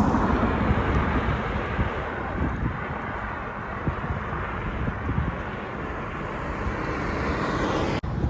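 Steady rush of road traffic noise mixed with wind on the microphone, with no clear engine note. It swells near the end and cuts off abruptly.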